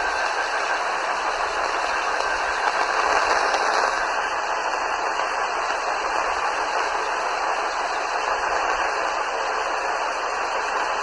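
Steady hiss of radio static from a receiver with no clear signal, loud and even.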